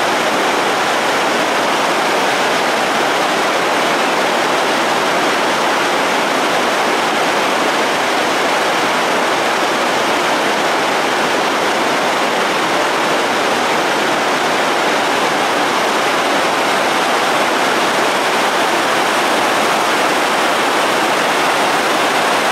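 River water pouring over a weir, a loud, steady rush of white water.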